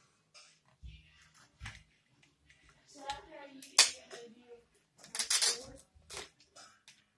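Plastic Mini Brands surprise capsule handled and pulled open: scattered small clicks, a sharp loud click just before four seconds in as the halves come apart, then a short crinkle of the wrapper around the item inside. A brief voice murmur comes shortly before the loud click.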